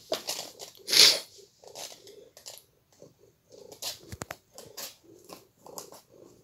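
Thin cardboard box rustling and scraping in irregular bursts as a cat pushes and paws around inside it, loudest about a second in, with a few quick sharp clicks around four seconds in.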